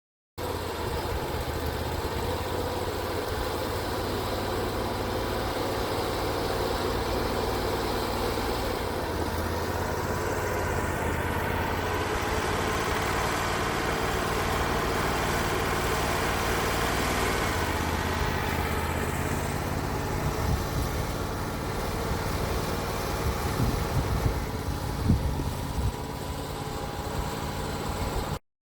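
Portable band sawmill running steadily with its engine humming throughout, with a few sharp knocks and rattles in the last few seconds.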